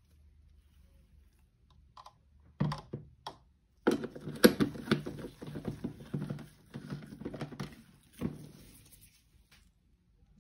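A plastic personal-blender cup and its blade base being handled and set on a wooden countertop: a few sharp knocks, then a run of clicks and clattering about four seconds in as the parts are fitted together. The blender motor does not run.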